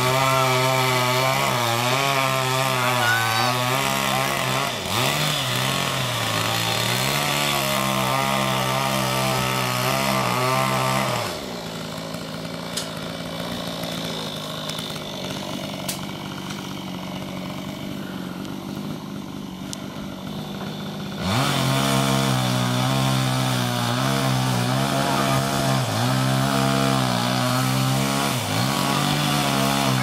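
A two-stroke chainsaw cutting into a tree trunk during felling, its engine pitch rising and falling as it bites under load. About eleven seconds in, it drops to a quieter sound for roughly ten seconds, then revs back up and keeps cutting.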